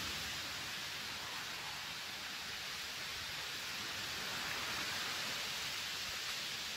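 Steady, even hiss of a breeze over open water, with no distinct events.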